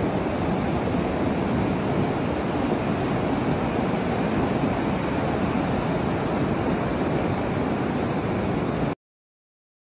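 Steady rushing of fast-flowing, muddy floodwater from a river over its banks, a dense even roar without breaks. It cuts off suddenly about nine seconds in.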